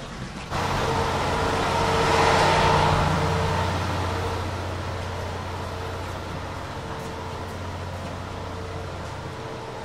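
A ship's onboard machinery hum inside a patrol vessel's corridor: a steady low drone with a few held tones and a rushing air noise. It starts abruptly, swells about two seconds in and slowly eases off.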